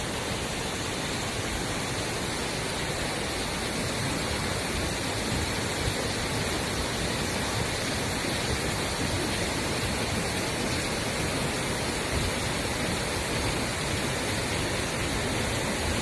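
Mae Klang waterfall in flood after a night of heavy rain, a steady, even rush of high water pouring over the falls.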